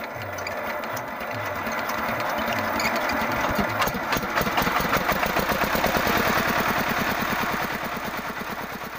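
A power tiller's single-cylinder diesel engine running just after starting, its firing beats quickening over the first few seconds and fading away near the end. The engine's oil pump has just been repaired so that lubricating oil now flows.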